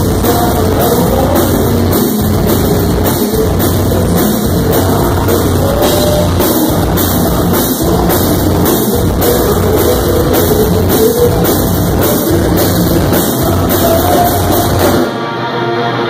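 Live metal band playing loud: drum kit keeping a steady beat under electric guitars and a singer at the microphone. About a second before the end the drums and bass drop out, leaving guitar.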